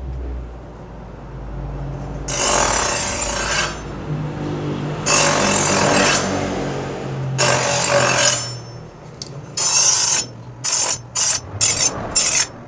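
Electric knife sharpener's motor starts up with a low hum, and a steel knife blade is drawn through its grinding-wheel slot in three slow grinding strokes, sharpening the edge. After that come quick, short passes, two to three a second.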